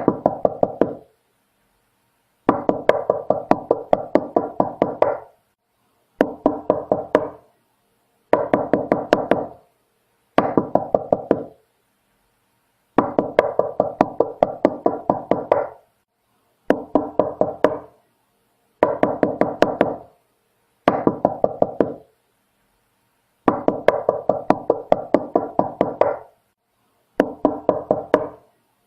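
Knocking on a door in repeated bursts of rapid knocks, about four to five a second, some runs short and some longer, with pauses of about a second between them.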